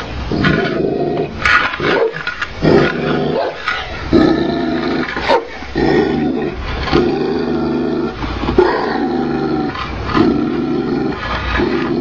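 Tibetan mastiff growling: deep, rough growls that break off and start again about once a second.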